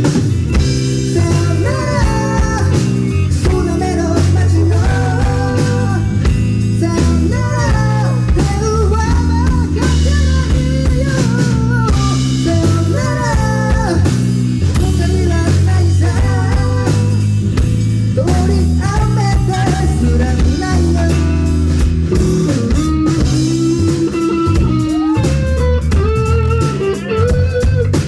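A rock band playing live: drum kit and bass guitar under a lead line that slides and bends in pitch, with electric guitar.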